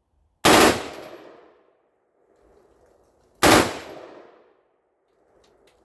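Two rifle shots about three seconds apart, each sharp report followed by a trailing echo that fades over about a second. The second shot is the last round, leaving the rifle empty with its chamber open; faint clicks follow near the end.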